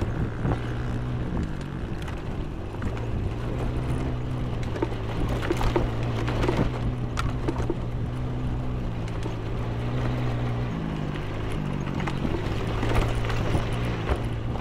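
A small vehicle engine running steadily while riding over a rough dirt track. Its note drops about ten seconds in and picks back up shortly after. Scattered knocks and rattles come from the bumps.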